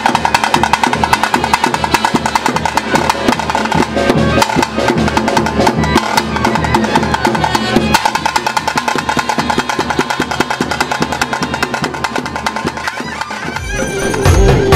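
Fast, dense drumming with a steady high held tone over it, the drum-and-pipe music of a Tulu daiva kola. Near the end it gives way to a different folk-style song with a heavy beat.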